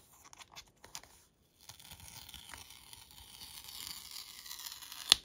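Seal strip being slowly peeled off an Apple Watch Ultra box. A few light clicks come first, then a steady tearing rasp from about two seconds in that grows louder, ending in a sharp snap near the end.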